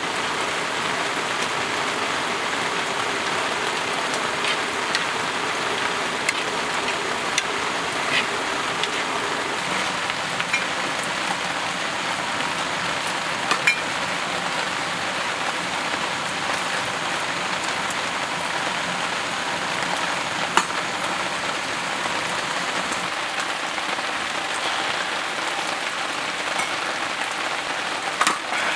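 Steady rain falling: an even patter, with now and then a single louder drop ticking out of it.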